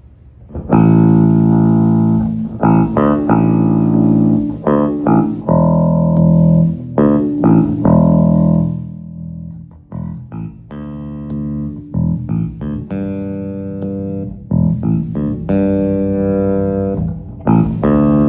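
Wolf S7-7 seven-string electric bass played through a Phil Jones Bass amp set flat: a run of sustained notes and chords, with short breaks between phrases.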